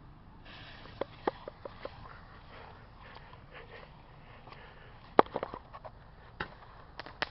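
Fisherman 'Dancing with the Stars' 10-ball Roman candle going off: a low hiss with scattered sharp pops and crackles, the loudest about five seconds in.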